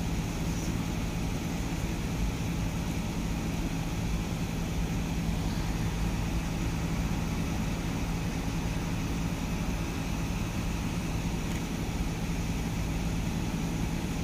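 A steady mechanical hum with a constant low tone, unchanging throughout.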